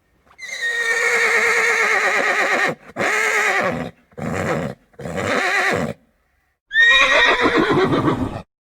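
Horse whinnies, the stock neighing effect used for zebras on screen in place of a real zebra's call. One long quavering whinny falls in pitch, followed by three shorter neighs, then another long whinny that starts high near the end.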